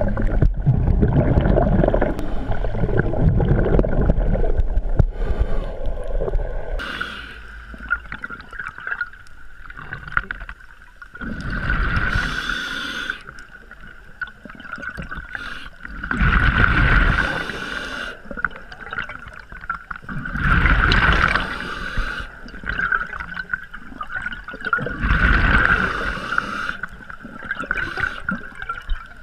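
Underwater rushing of water and bubbles for the first several seconds as the diver goes in. Then a scuba diver's breathing through the regulator: a burst of exhaled bubbles about every four to five seconds, with a steady high whine underneath.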